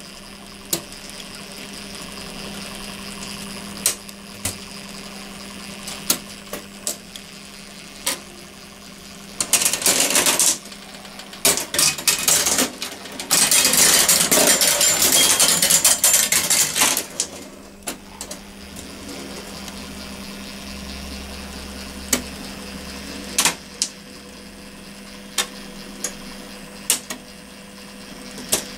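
Meccano marble machine running: a steady motor hum under its turning gears and chains, with scattered sharp clicks. Twice there is a spell of dense metallic clattering, a short one about ten seconds in and a longer one of about four seconds soon after, as marbles run through the metal parts.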